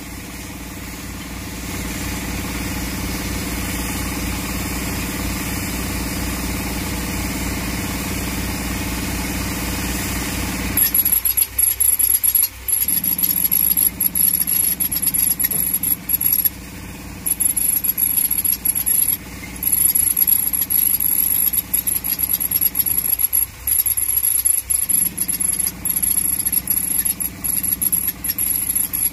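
Tractor-driven air compressor running steadily; about a third of the way in a pneumatic rock drill starts hammering into rock, a loud fast rattle with a high steady whistle, cutting out briefly twice.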